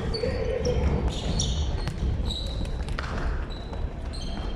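Basketball game on a gym court: the ball thumps as it is dribbled and bounced, with sneakers squeaking in short high chirps on the floor.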